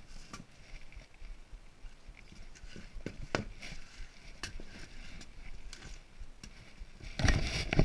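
Scattered light taps and knocks of wood being handled and set down, with a louder clatter about seven seconds in.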